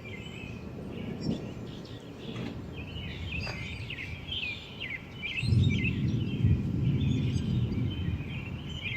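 Songbirds chirping and calling repeatedly, with a low rumble coming in about five and a half seconds in and running on.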